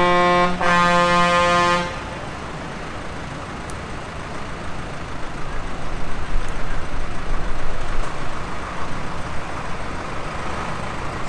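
A vehicle horn sounds in two blasts, a short one and then a longer one of about a second, ending about two seconds in. Afterwards there is steady outdoor background noise with a low rumble that swells about six seconds in.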